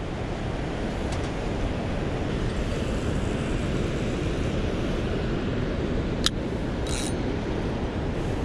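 Steady rush of water pouring out below a hydroelectric dam, mixed with wind on the microphone. There is a single sharp click about six seconds in, and a brief rattle just after it.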